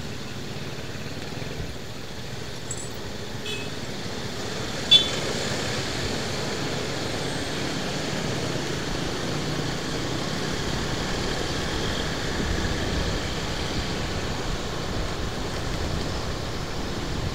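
Town traffic of motorcycles and cars: steady engine and road noise that grows louder about five seconds in as the queue pulls away from the traffic light. A short sharp sound stands out just before it grows.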